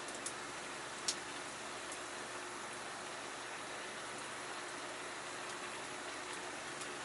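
Paella cooking over a wood campfire: a steady sizzling hiss from the pan, with a few sharp crackles, the loudest about a second in.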